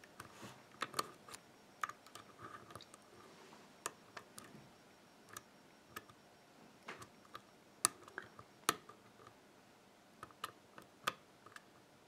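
Faint, irregular metallic clicks of a lock pick probing the pins of a WILKA six-pin euro cylinder held under tension in a false set, as the picker hunts for the spool pin. A couple of sharper clicks stand out about two-thirds of the way through.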